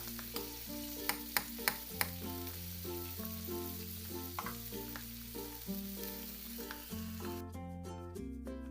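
Food sizzling as it fries in a miniature pan, with four quick sharp taps about a second in, over light background music. The sizzle cuts off suddenly near the end, leaving only the music.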